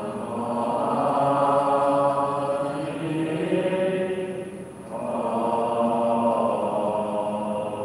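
Buddhist devotional chanting: long, drawn-out syllables on a slow, stepping melody, with a short breath-like gap just before five seconds in.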